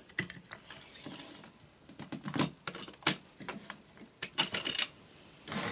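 Scattered light clicks and taps, then near the end the motor of a Hornby OO gauge Duck model locomotive starts running with a steady mechanical sound as it first moves under power.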